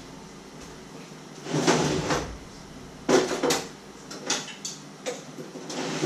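Kitchen cupboards and drawers being opened and shut and rummaged through: a few short knocks and rattles, the loudest about one and a half and three seconds in, then lighter clicks and another bump near the end.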